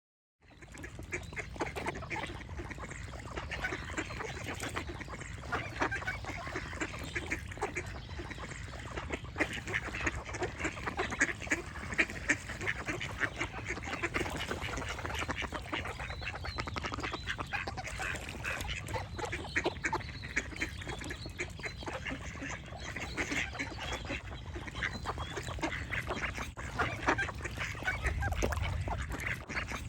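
Ducks quacking over and over, many short calls in a dense run, with birds chirping among them, over a steady low background noise.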